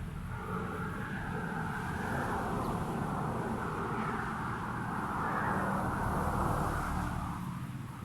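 A passing motor vehicle: a steady rushing noise that builds over several seconds and fades out near the end, over a low rumble.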